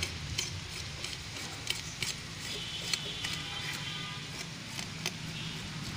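Fish being cut on a boti, a curved blade fixed upright on a stand: a few sharp clicks and scrapes of the blade against the fish, spaced irregularly, over a low steady hum.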